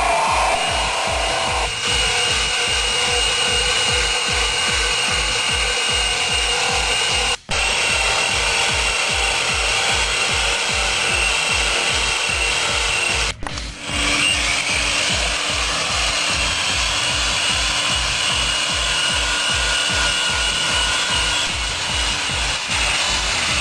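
Angle grinder running with an attachment over background music with a steady beat. The sound drops out briefly twice, at about 7 and 13 seconds in.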